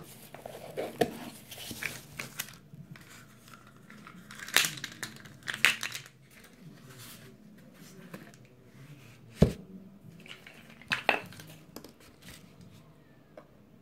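Scattered clicks and rustles from blue plastic measuring cups and packaging being handled while baking ingredients are measured out, with a few sharper knocks, the loudest about nine and a half seconds in.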